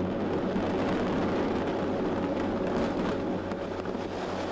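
A high-rise building collapsing in a demolition implosion: a dense, steady rumble of falling concrete, with a few sharp cracks in the second half.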